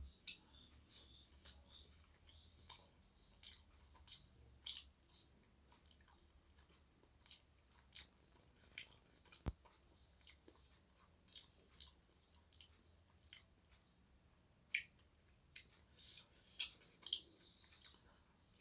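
Faint eating sounds from a person eating rice by hand from a glass plate: soft, irregular clicks and smacks of chewing and of fingers picking at the food, with one sharper click about halfway through.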